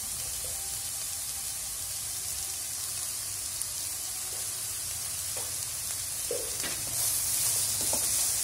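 Sliced okra and shredded carrot sizzling in a frying pan, a steady hiss. About seven seconds in it grows louder as a slotted spatula starts stirring, with a few light knocks and scrapes of the spatula on the pan.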